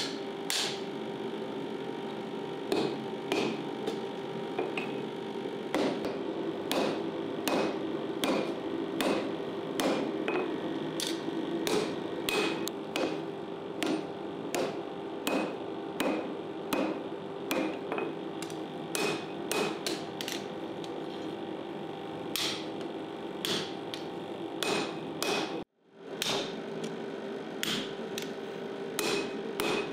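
Repeated sharp knocks, like hammer blows, falling irregularly about once or twice a second over a steady hum. The sound cuts out briefly near the end, then both resume.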